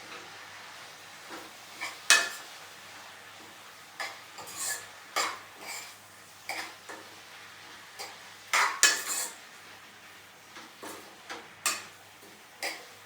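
Dishes and metal cutlery clinking and clattering in irregular knocks and scrapes, loudest about two seconds in and again near nine seconds.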